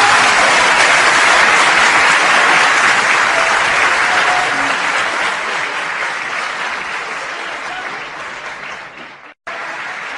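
Concert audience applauding after the singing stops, the applause slowly dying down. It cuts out for a moment near the end, then comes back quieter.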